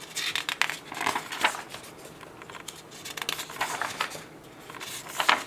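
Paper pages of a workbook being turned and handled, with rustling and crinkling in several short bursts, the loudest just before the end.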